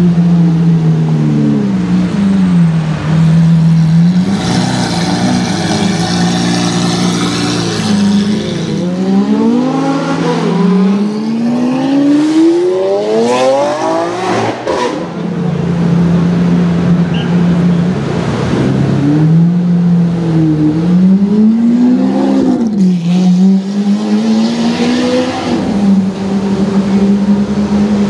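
Lamborghini Aventador's V12 engine running at low speed and being revved, its pitch dipping and rising in repeated blips. About ten seconds in it climbs steadily in a long acceleration, with sharp crackles from the exhaust near the peak, then settles back to steady running before more revving.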